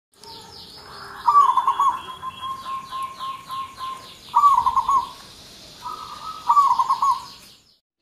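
Zebra dove (perkutut) cooing: three loud rolling, stuttering coo phrases, the first about a second in, with a fainter drawn-out coo between them. Other birds chirp faintly and higher-pitched behind it.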